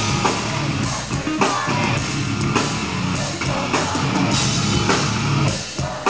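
Live rock band playing an instrumental passage: distorted guitars, bass and a drum kit with steady drum hits, with no singing.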